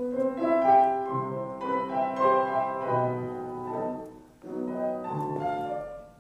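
Instrumental music: a short melodic phrase over sustained notes. It breaks off briefly a little over four seconds in, then a second phrase follows and fades out near the end.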